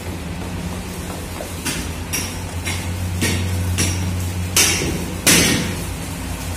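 Metal knocks and clanks from compressor parts being worked on: about seven strokes roughly half a second apart, the last two loudest. A steady low hum runs underneath.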